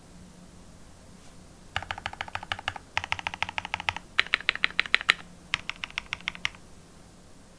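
Mechanical keyboard typing: a Matrix Vita with lubed NovelKeys Cream linear switches on an aluminium plate and PBT keycaps, typed in four quick runs of rapid keystrokes that begin about two seconds in and stop about a second before the end.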